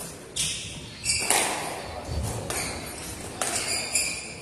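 Squash rally: the ball smacking off racquets and the court walls, with high shoe squeaks on the wooden floor as the players move, several sharp hits a second or so apart.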